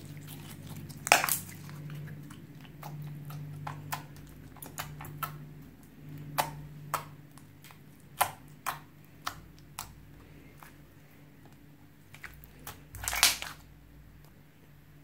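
Slime being squeezed and kneaded by hand, giving irregular sticky clicks and pops, with a louder one about a second in and another near the end.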